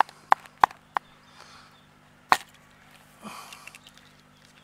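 A tiny chicken egg cracked against a plastic bowl: a few sharp taps in the first second, then one louder crack a little after two seconds.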